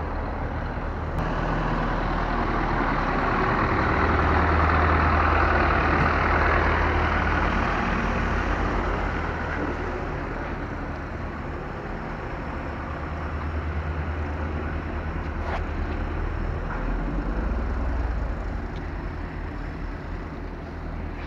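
Street traffic with a heavy vehicle's engine running, a low steady hum under road noise that grows louder about four to eight seconds in and then fades somewhat.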